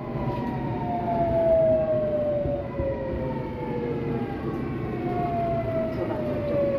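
Seoul Line 8 subway train's electric traction drive whining as it pulls away from a station and accelerates, heard from inside the car. Several tones glide slowly downward together, one sweep overlapping the next, over a low rumble.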